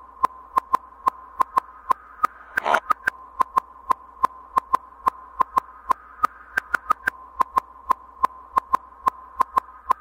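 Electronic sound effect: a steady high tone with sharp clicks about four a second and a short burst of static-like noise about three seconds in.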